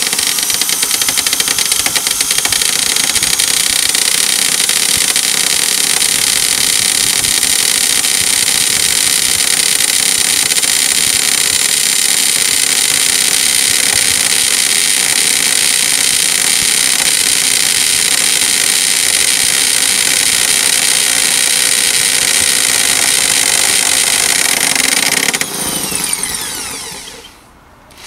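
Makita hammer drill running at full speed while boring a hole into concrete, a steady high motor whine. Near the end the trigger is released and the motor winds down in pitch to a stop.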